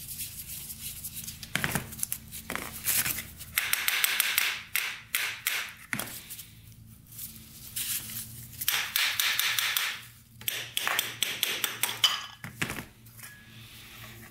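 A screwdriver backing small screws out of a carburetor's float bowl: two stretches of gritty metal scraping as the screws turn, with several sharp clicks and taps as screws and tool are put down on cardboard.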